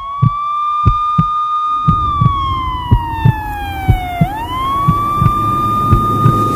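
A siren wailing at a steady high pitch, falling slowly about two seconds in and sweeping quickly back up about four seconds in, over deep, evenly repeating drum thumps.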